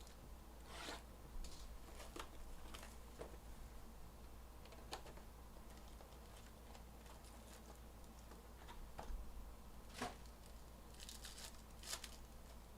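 Faint crinkling and tearing of plastic and foil wrappers as a hobby box of trading card packs is opened, with scattered light clicks and rustles of handling.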